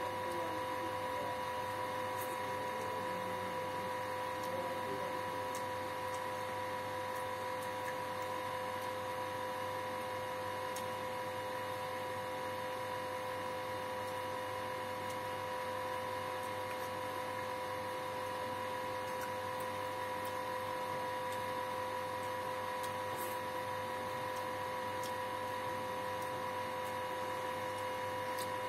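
A steady, unchanging hum with a fixed pitch, and a few faint clicks.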